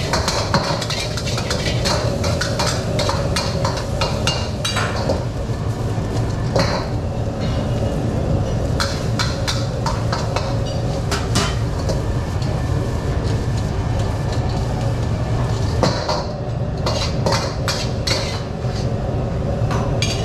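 Metal cookware and utensils clanking and scraping in a restaurant kitchen, with many sharp clinks at irregular intervals over a steady low background noise.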